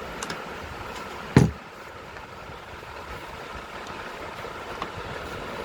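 A steady mechanical hum with a single heavy thump about one and a half seconds in.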